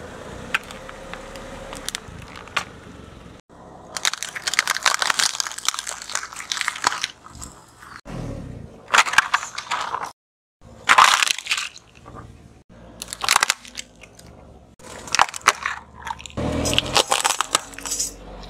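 Car tyre rolling over and crushing hard plastic objects, such as a keyboard and plastic toys: several separate bursts of crunching and cracking plastic, with short pauses between them.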